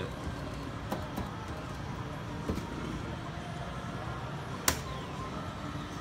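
Claw machine working in a noisy arcade: a steady background din with a couple of light clicks around a second in and one sharp click a little before the end, as the claw drops into the boxes.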